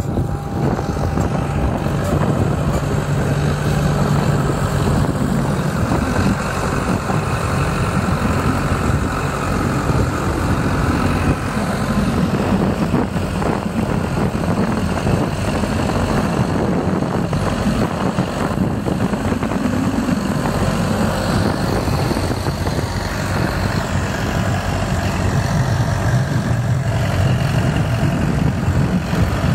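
John Deere tractor diesel engine running steadily under load while pulling a mounted plough through stubble, its drone rising and easing a little.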